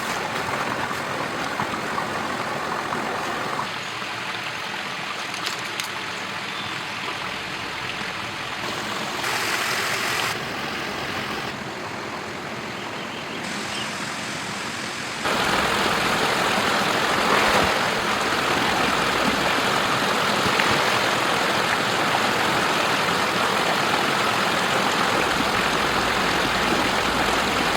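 Rushing water of a waterfall and river, a steady noise that shifts abruptly in level several times and is loudest from about halfway through.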